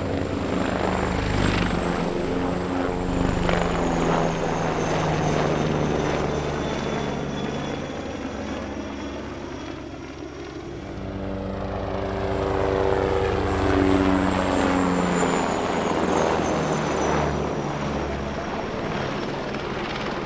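Eurocopter Tigre attack helicopter flying a display: rotor chop with a high twin-turboshaft whine. The whine falls in pitch as the helicopter sweeps past, and the sound fades about halfway through, then builds again on the next pass.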